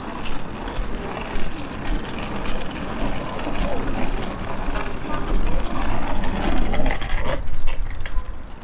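City street ambience: traffic and people's voices mixed together, with a steady low rumble underneath.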